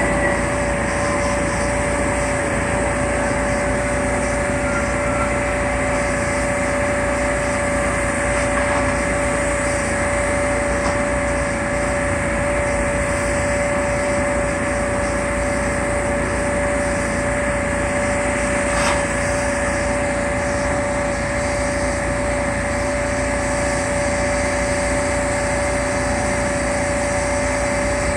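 An engine running steadily, with a constant whine over it; a single faint click about two-thirds of the way through.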